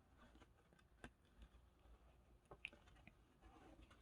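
Near silence: room tone with a few faint clicks, about a second in and again near the middle.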